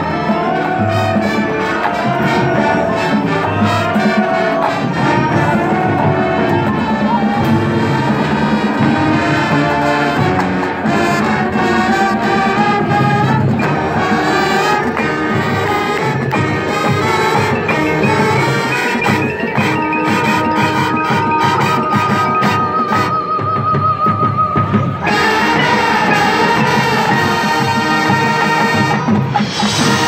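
Marching band playing: brass melody and harmony over drumline percussion. Late in the passage a high note is held while the texture thins briefly, then the full band comes back in.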